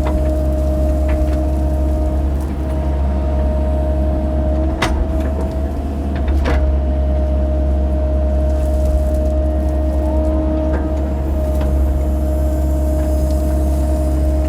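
Mini excavator's diesel engine running steadily under work with a constant whine. Two sharp knocks come about five and six and a half seconds in.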